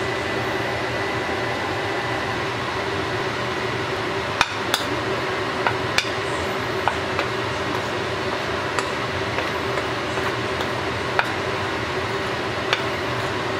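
A metal spoon clicking and scraping against a ceramic plate while stirring flour, about ten light clinks from about four seconds in, over a steady hiss with a low hum.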